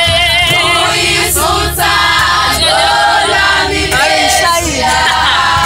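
A group of voices singing together in chorus, the pitch wavering, with a few sharp beats about a second and a half in.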